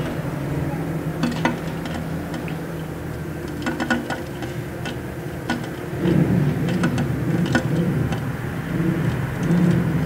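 A steady low mechanical hum, like a running engine, that swells about six seconds in, with a few light taps and clicks scattered over it.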